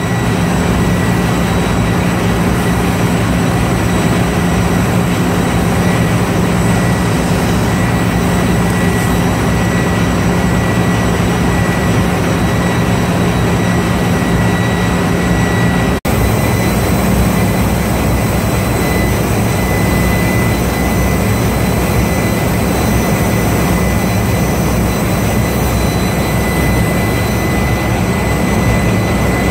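Steady workshop drone during arc welding on a ship's main-engine exhaust valve: an even noise with a constant low hum and a thin high whine. It drops out for an instant about halfway through.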